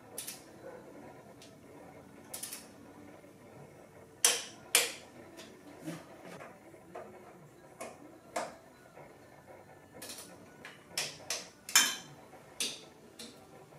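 Irregular sharp metallic clicks and clinks from a Tekton click-type torque wrench and hand tools as they are worked and handled, tightening screws on a motorcycle handlebar clamp and hand-control switch housing. The loudest pair of clicks comes about four seconds in and the sharpest single click near the end.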